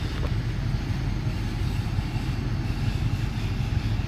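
Toyota Revo engine idling steadily at about 1,000 rpm, heard from inside the cab as a low, even rumble.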